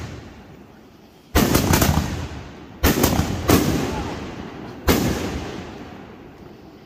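Magnus Ghost Killer 4-inch canister shells firing: four heavy booms from mortar lifts and hard shell breaks, the last three about a second to a second and a half apart, each rolling away in a long echo.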